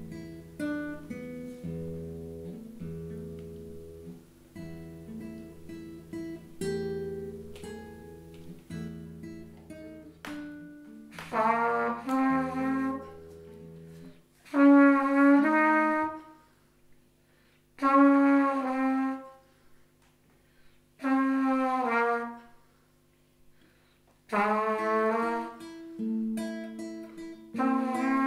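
Music: plucked guitar-like notes over a bass line, then from about ten seconds in, short loud phrases on a wind instrument, separated by pauses.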